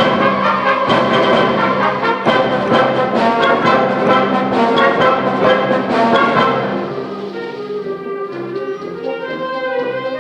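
Concert band playing, with the brass prominent: a loud full passage with strongly accented beats, which drops to a softer, thinner passage about seven seconds in.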